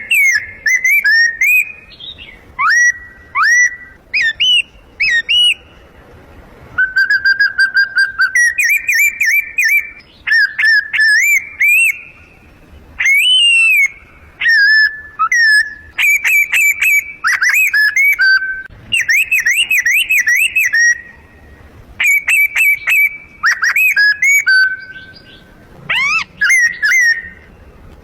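A man whistling imitations of bird song in short bursts: rapid chirps, trills and quick up-and-down sweeps, with a few steady held notes and brief pauses between phrases.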